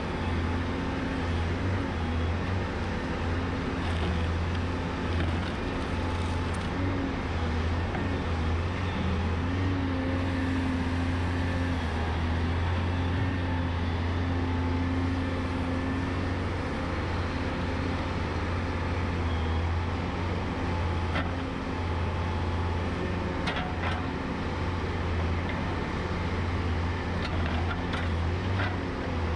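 Volvo A30C articulated hauler's diesel engine running steadily, with a few light clanks in the last few seconds.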